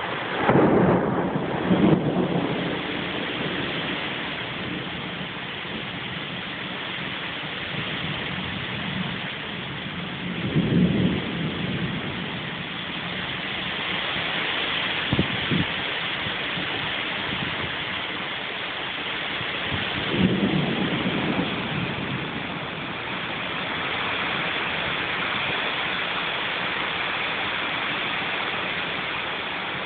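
Thunderstorm: steady heavy rain with three low rolls of thunder, near the start, about ten seconds in and about twenty seconds in, and one short sharp crack about fifteen seconds in.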